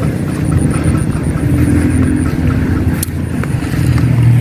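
A steady low rumble, with a faint fast ticking high up during the first two seconds.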